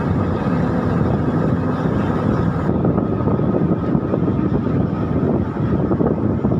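A tugboat's diesel engines running loud and steady, heard from on board. The higher hiss above the rumble drops away suddenly about three seconds in.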